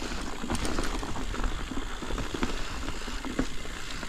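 Ibis Ripmo mountain bike rolling down a chunky trail of loose rocks: tyres crunching over stones, with irregular clattering knocks and clicks from the bike.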